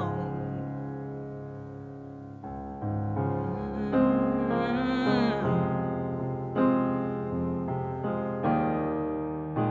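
Slow piano music: sustained chords struck anew every second or so, each fading before the next.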